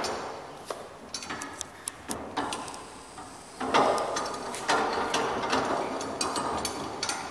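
Steel drum-clamp band being tightened by spinning a handwheel on its screw: metal clicking and rattling, scattered at first and denser from about four seconds in.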